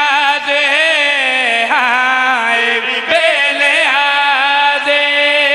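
A man chanting devotional verse (a qasida) in a slow, drawn-out melodic style, holding long notes whose pitch wavers and curls in ornaments.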